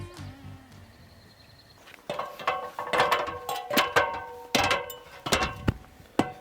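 The tail of background music fades out, then from about two seconds in comes a run of sharp, loud knocks with a short ring after several of them, typical of nails being driven into roofing.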